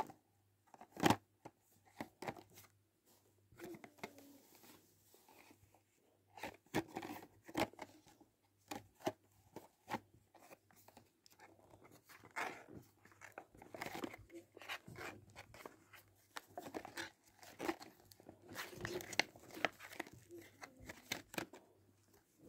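A Hot Wheels blister pack being handled and opened by hand: the clear plastic blister crinkles and crackles and the cardboard card tears, in irregular clicks and rustles, with the loudest crack about a second in.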